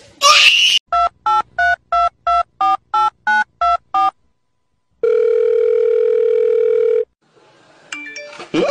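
Touch-tone phone keypad dialing: ten short two-tone beeps at about three a second, after a short noisy whoosh. Then one steady tone of a line ringing for about two seconds.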